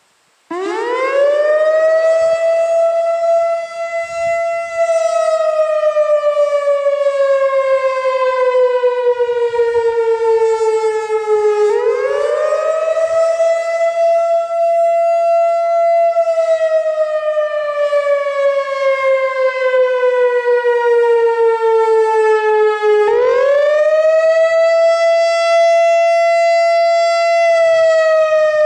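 Analog Whelen WPS-4004 electronic outdoor warning siren sounding its wail test signal, coming on about half a second in. The pitch rises quickly, holds for a few seconds, then falls slowly, and the cycle repeats about every 11 seconds.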